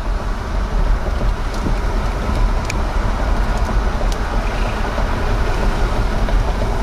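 Steady roar of a car driving on a wet road through strong tornado winds, heard from inside the cabin, with a few light ticks against the car.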